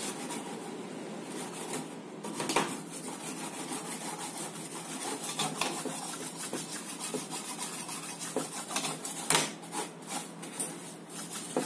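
A small brush scrubbing the solder side of a TV power-supply circuit board: steady rough rubbing with a few sharp taps. It is cleaning away solder debris after soldering, so that loose bits cannot bridge joints and cause a short.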